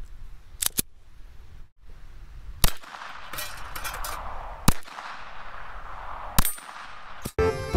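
Glock pistol fired single shots, about one every two seconds, each a sharp crack followed by a short metallic ring.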